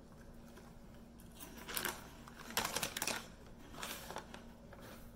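Crunchy churro snack being chewed and its plastic snack bag crinkling, heard as three short bursts of crackling.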